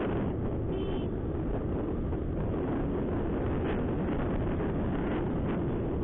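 Wind rushing over the microphone and the steady running noise of a Honda SP125 motorcycle cruising at about 60–65 km/h.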